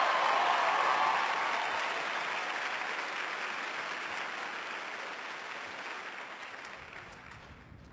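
Theatre audience applauding, loudest in the first second or so, then dying away gradually until it is nearly quiet by the end.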